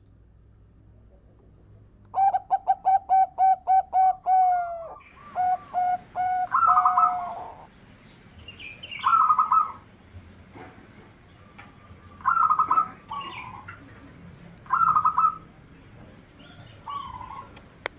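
Zebra dove (perkutut) cooing: a fast run of about a dozen short, clipped notes, then a few longer coos, followed by single short calls every couple of seconds.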